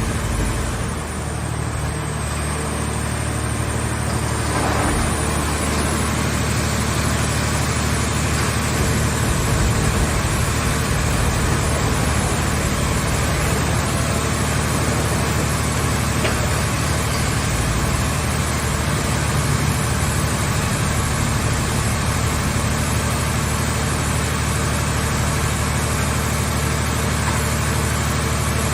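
A mobile scrap-car baler's engine and hydraulic power unit running steadily with a constant low hum, dipping slightly about a second in and then holding level.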